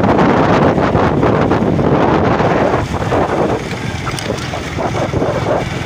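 Wind buffeting the microphone as the camera moves along the road, a dense low rumble that eases a little about three seconds in.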